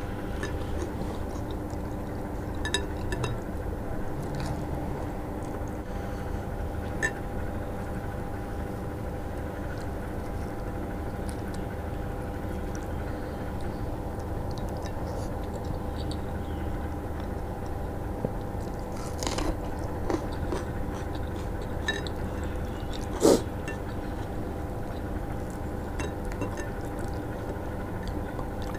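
A person eating with her hand: chewing, and rice being mixed by hand in a bowl of water, with scattered small clicks and one sharper knock about three-quarters of the way through. A steady hum runs underneath.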